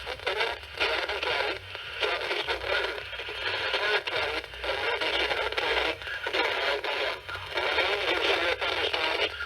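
Radio broadcast of a severe thunderstorm warning relay: a voice heard through a radio receiver's speaker, thin and full of static, over a low hum.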